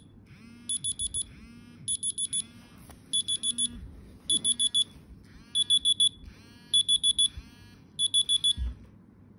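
Smartphone alarm ringing: short high beeps in quick groups of four, a group about every second, getting louder. It stops near the end when it is swiped off.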